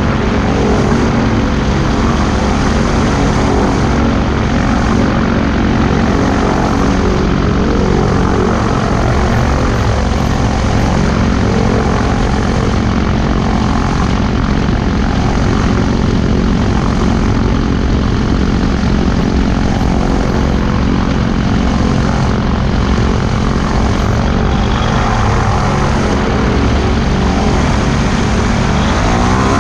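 Weight-shift trike's engine and pusher propeller running steadily at taxi power, with the pitch starting to climb at the very end.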